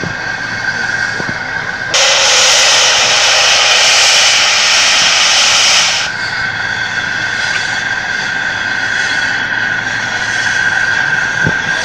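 Standing RhB G4/5 steam locomotive hissing steadily; about two seconds in, a loud rush of steam blows off for about four seconds and cuts off suddenly.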